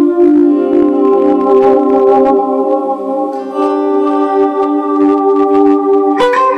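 Electric guitar played through an Origin Effects Cali76 compressor pedal and ambient effects: long sustained chords ringing steadily, with a new chord struck near the end.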